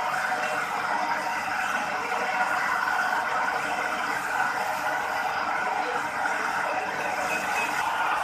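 Tyre retreading workshop machinery running with a steady mechanical noise that holds at an even level throughout.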